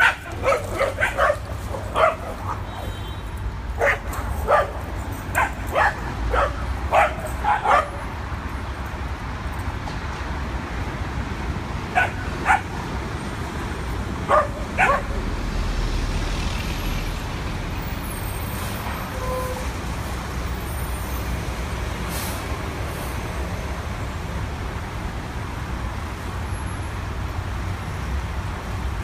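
Dogs barking in short, sharp barks, a quick run of them over the first several seconds and a few more about halfway through, over a steady low rumble of street traffic. The rumble swells around the middle as a heavy truck goes by.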